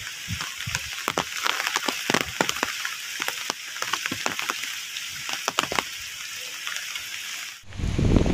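Rain falling: a steady hiss with many irregular drop ticks. About seven and a half seconds in it cuts to wind buffeting the microphone, a low rumble.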